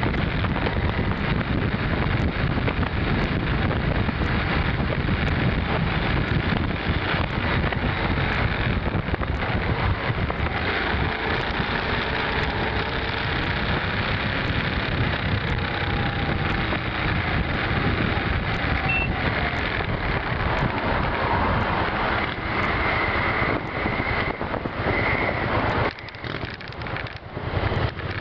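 V-twin cruiser motorcycle riding at speed: steady engine noise mixed with wind rushing over the microphone. It drops sharply about 26 seconds in as the bike slows and stops.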